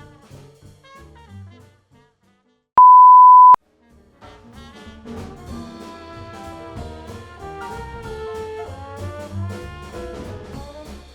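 Jazzy brass-led background music that drops out about two seconds in. A single loud, steady beep lasting under a second follows, then the music comes back.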